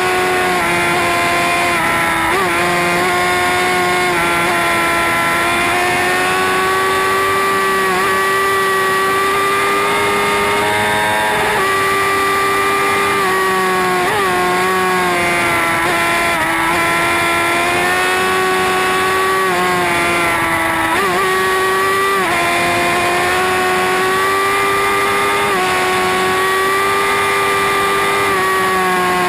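Superbike engine running hard at high revs, its pitch holding fairly steady and dipping sharply every few seconds at throttle changes or gear shifts.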